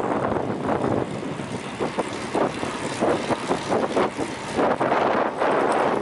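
Wind rushing and buffeting over the microphone, mixed with road or traffic noise, in uneven gusts.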